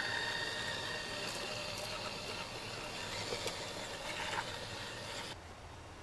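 Tamiya CR-01 scale RC 4x4's electric motor and gearbox whining steadily as the truck drives, cutting off abruptly near the end.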